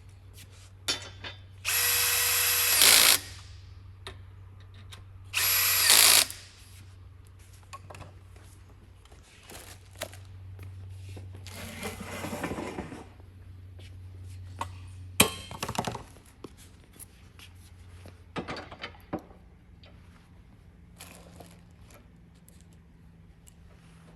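Power drill driving bolts into a desk's metal frame in two bursts, the first about a second and a half long and the second about a second. Scattered clicks and knocks of parts being handled follow.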